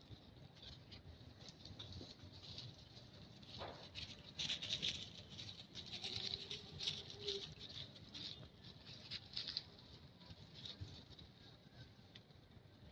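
Faint rustling and crackling of dry leaf litter as macaques shift about and groom on the forest floor, in short irregular spells that are busiest from about four to ten seconds in.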